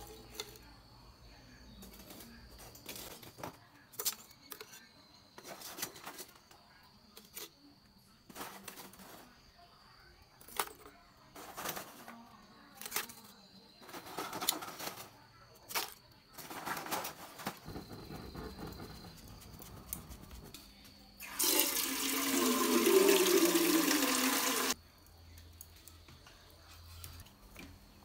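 Lumps of charcoal knocking and clattering as they are piled into a clay charcoal bucket stove over a small wood fire, in scattered single knocks and clicks. About three-quarters of the way through, a loud rushing noise lasts about three seconds.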